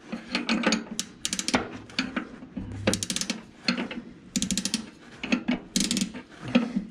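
Spanner turning the brake adjuster on a Ferguson TE20's drum brake, giving repeated bursts of rapid ratcheting clicks, roughly one a second, as the brake shoes are being adjusted.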